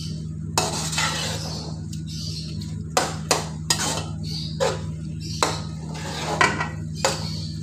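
A spoon scraping and knocking against the sides and bottom of a metal pot as a thick minced-meat and aubergine curry is stirred, in quick irregular strokes. A steady low hum runs underneath.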